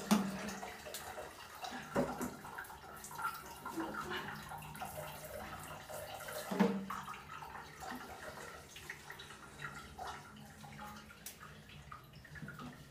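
Water splashing and dripping in a small tiled bathroom as long wet hair is washed, with scattered small drips and a few sharper knocks.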